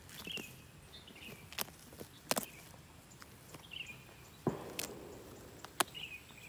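Dry, rotten wood being torn and picked apart by hand: sharp snaps of splintering fibres and a brief crackling crunch a little past the middle. A bird's short falling chirp repeats a few times behind it.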